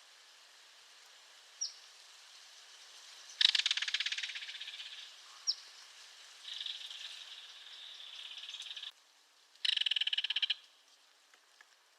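Belted kingfisher giving its dry rattle call: a loud, rapid rattle of about a second and a half a few seconds in, a fainter, longer one after it, and another short loud rattle near the end, with a couple of brief high chips between.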